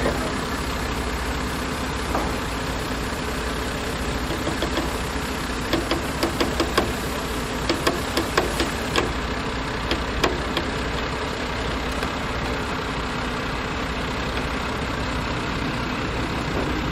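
Heavy truck diesel engine idling steadily. A run of short, sharp clicks and knocks comes over it in the middle, from about five to ten seconds in.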